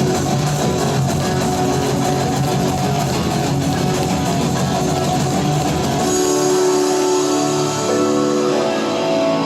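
Rock-style band music led by guitar. About six seconds in, the heavy low end drops out and held guitar notes carry on over a lighter backing.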